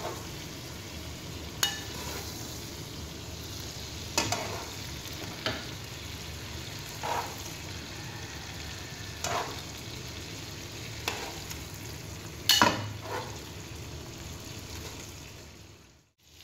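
Shrimp sizzling steadily in an oily coated wok, with metal tongs clicking against the pan now and then as the shrimp are picked up and lifted out. The sound fades away shortly before the end.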